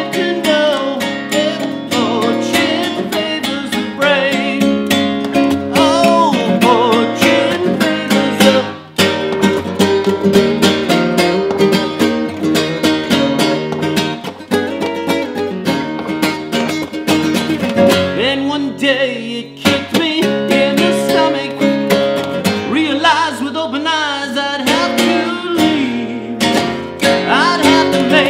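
Nylon-string acoustic guitar strummed and picked in a steady song rhythm, with a voice singing over it at times.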